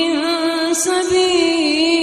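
Quran recitation: a single voice chanting with tajweed, holding one long ornamented note that bends gently in pitch without a break.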